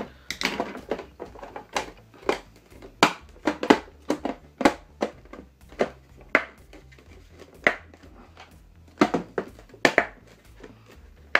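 Plastic clicks and knocks from an emergency light fitting being handled as its clear ribbed diffuser cover is pressed and clipped onto the white plastic base. More than a dozen irregular sharp clicks.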